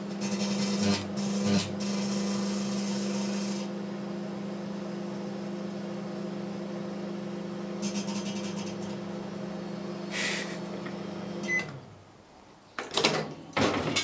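Panasonic inverter microwave oven running with a steady hum, with bursts of crackling from a metal halide bulb arcing inside it. The hum cuts off about twelve seconds in, followed by a few clicks and knocks as the door is opened.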